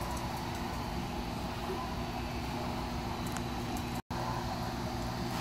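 Steady background hum and hiss of a large store interior, with a few faint light ticks. The sound cuts out completely for an instant about four seconds in.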